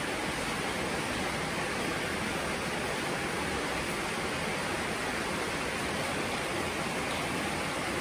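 Steady rain falling, an even unbroken hiss.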